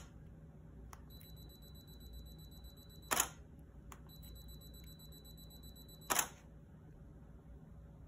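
Canon EOS 7D firing on its 2-second remote delay. Each time there is a faint click, then a high steady beep for about two seconds while the timer counts down, then the loud clack of the mirror and shutter. The cycle happens twice, about three seconds apart, and the shutter clack is the loudest sound.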